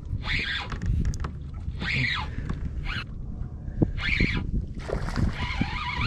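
Spinning reel drag buzzing in short pulls about once a second as a hooked redfish takes line, over low wind rumble on the microphone.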